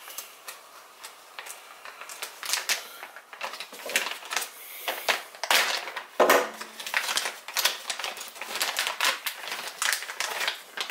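A plastic parts bag crinkling and rustling in irregular bursts as it is handled and opened to get an RC wheel rim out, with one louder clack about six seconds in.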